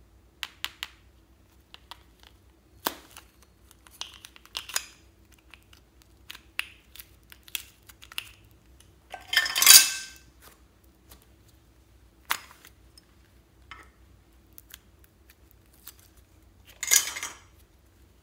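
Slime being handled: small clicks of plastic bear-shaped slime tubs, then sticky slime pressed and squeezed into a glass dish, with crackling squelches that are loudest about halfway through and near the end.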